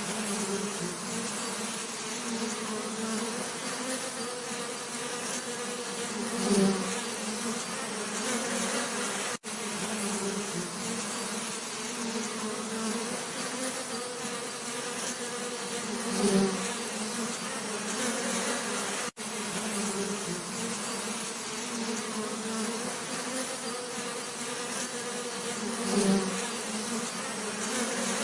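Steady buzzing of many bees, a low hum with a second, higher band above it. Three times, about ten seconds apart, the buzz swells briefly louder as a bee passes close. Twice the sound cuts out for an instant.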